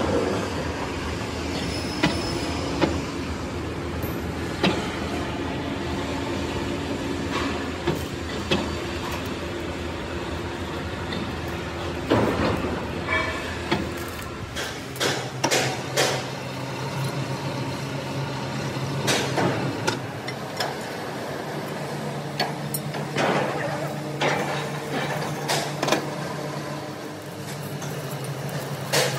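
Heavy steel hoist chains clanking and metal castings knocking as they are rigged and lifted on a crane hook, over the steady hum of a running machine. The clanks come singly in the first half and in quick clusters in the second, and the hum changes pitch about halfway through.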